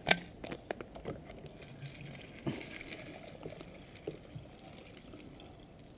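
A plastic coolant expansion tank handled: one sharp knock at the very start and a few lighter clicks and knocks. Water is then poured into the tank from a plastic can, with a faint trickle.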